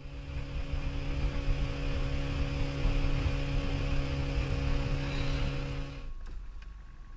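Small boat's outboard motor running at a steady pitch, with water and wind noise, cutting off about six seconds in.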